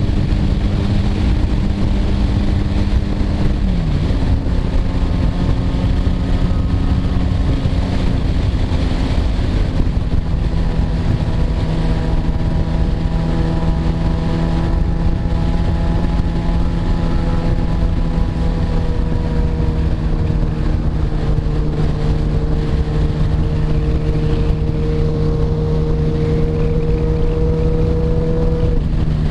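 Motorcycle engine running under way at a steady speed, with wind buffeting the microphone. The engine note drops sharply about four seconds in, holds steady, and drops again near the end.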